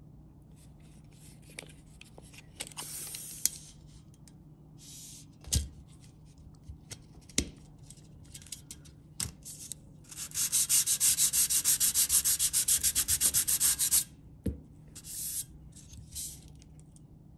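The steel blade of a Crescent Lufkin Control Series 25 ft tape measure is scraped along a ridged mat in a durability test. First come scattered clicks and short rubs, then about ten seconds in a fast, even run of rasping strokes, about eight a second, for some four seconds.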